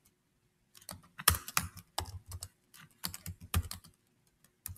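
Computer keyboard typing: quick, uneven runs of key clicks that start after about a second of quiet, with a short pause near the end.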